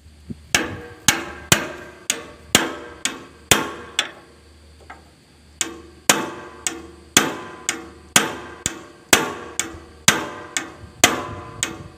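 Steel hammer striking a wrench on an excavator's hydraulic hose fitting, about two sharp ringing metallic blows a second, pausing briefly in the middle. The blows tighten the fitting after a burst O-ring has been replaced.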